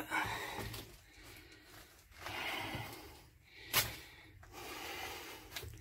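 A man breathing hard in a few long, hazy breaths, with a sharp click or knock a little under four seconds in.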